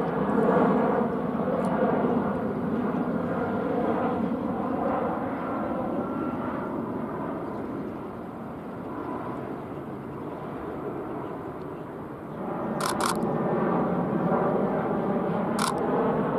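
Airbus A320 jet airliner on approach with its landing gear down, its engine noise steady with a slight dip in the middle. Sharp camera shutter clicks come in a quick pair about three quarters of the way through and once more near the end.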